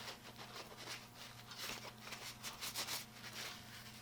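Faint, irregular rubbing and scratching from an old steel adjustable wrench being handled and wiped, over a low steady hum.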